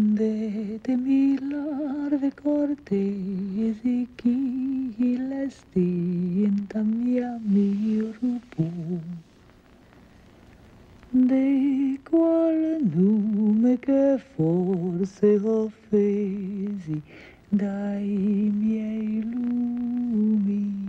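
A woman's voice humming a wordless melody unaccompanied, in long held, wavering notes, broken into short phrases with a pause of about two seconds near the middle.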